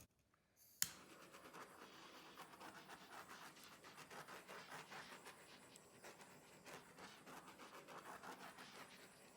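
Faint, irregular scratchy crackling, barely above near silence, as air bubbles in freshly poured acrylic base paint are popped. A single sharp click comes just under a second in.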